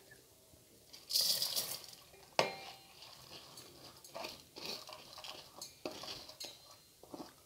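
Soaked rice and split moong dal tipped over a slotted steel draining plate into a steel pot. A short rushing pour about a second in, a sharp clank of steel on steel, then scattered scraping and rattling of wet grains over the metal as they are pushed across.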